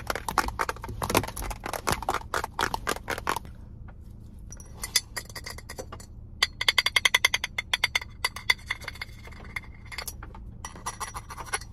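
Rapid tapping for the first few seconds, then, after a short pause, fingers tapping and clinking on a green glass bottle, each tap leaving a clear ringing tone.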